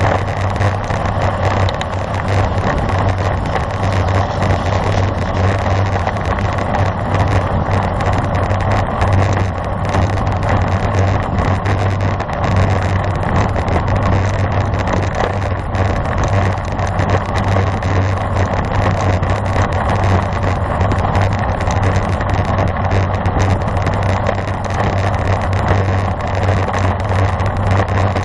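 Steady wind rush and road rumble on the microphone of a bicycle-mounted camera, riding at speed.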